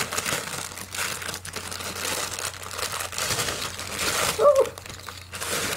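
Thin plastic jewelry packaging crinkling and rustling as it is handled and opened. A short vocal sound comes from a woman about four and a half seconds in.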